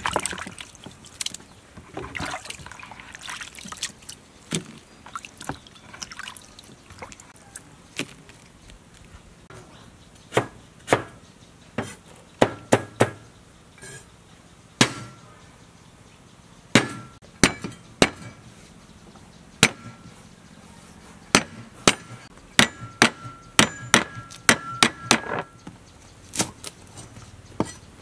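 Hands swishing and rubbing herbs and vegetables in a bowl of water for the first several seconds, then a cleaver striking a wooden chopping board in single chops at an uneven pace, some with a brief metallic ring.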